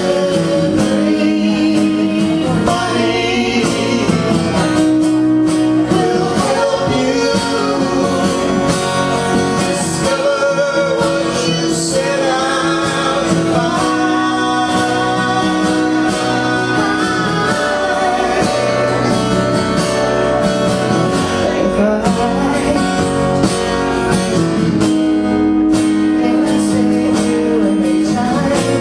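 Two acoustic guitars played together while a woman sings lead and a man sings harmony, a live acoustic duo song.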